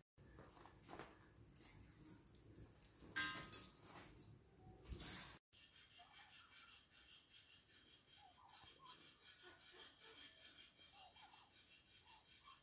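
Quiet handling of marinated meat pieces on a metal skewer over a bowl, soft rubbing with one sharp clink about three seconds in. The sound cuts out briefly a little past halfway, leaving near silence: faint background hiss with a few soft chirps.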